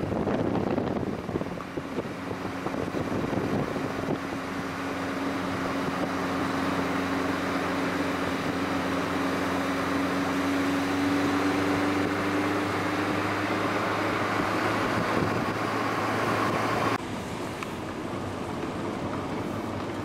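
Car engine and road noise while driving, the engine hum rising slowly in pitch over about ten seconds. Near the end the sound drops suddenly to a quieter, duller running noise.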